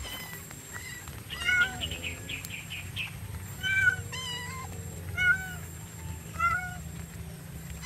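Kitten meowing over and over, a short meow every second or so.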